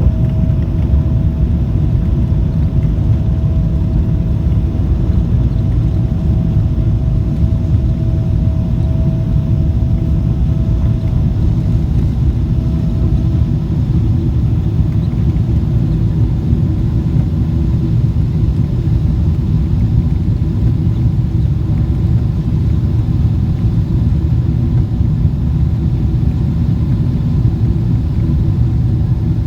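Steady, loud jet engine noise from a Boeing 777-300, heard inside the passenger cabin, a deep rumble with no breaks. A faint steady whine sits on top of it and fades out about halfway through.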